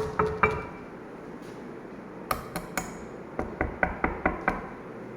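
Gold ring knocking on marble: sharp clinking taps with a brief ring. Three taps come at the start, three brighter ones come in the middle, and six quick taps come near the end.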